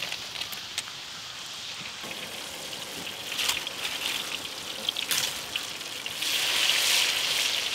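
Spiral-cut potatoes deep-frying in hot oil: a steady sizzle with scattered crackles and pops, growing louder about six seconds in.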